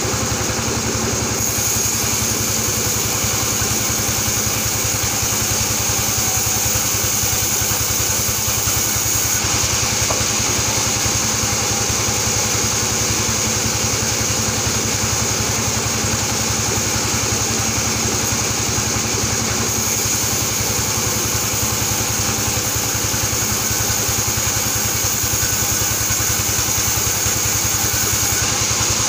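Sawmill band saw running steadily.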